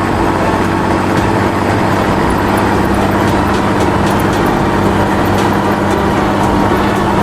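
Heavy truck engine running steadily with a low rumble and hum.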